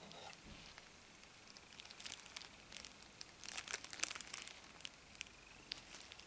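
Faint crinkling of clear plastic packaging being handled, in two short spells of crackle around two and four seconds in.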